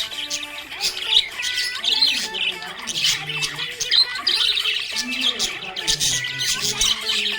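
A group of budgerigars chirping and squawking in a busy, continuous chatter of quick high calls.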